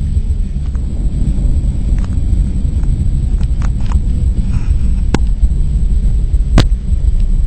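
Steady low rumble of a car driving, heard from inside the cabin, with two sharp clicks a second and a half apart near the end.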